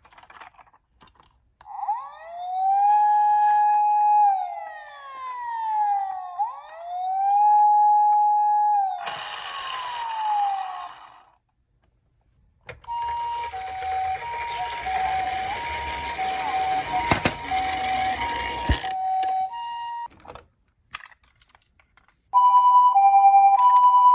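Emergency vehicle sirens. First a wail siren rises, holds and falls twice, then winds down about nine seconds in. After a short gap comes the two-tone hi-lo "pee-po" of a Japanese ambulance siren over a rushing noise, and it returns louder near the end.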